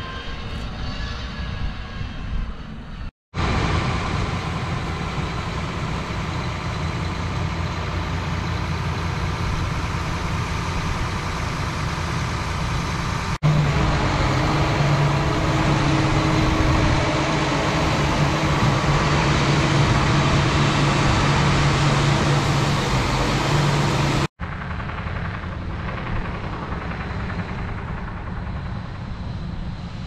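Heavy farm diesel engines running steadily through several cut-together shots, with no speech. The loudest stretch, in the middle, is a John Deere 9360R four-wheel-drive tractor's engine running up close with a steady low drone.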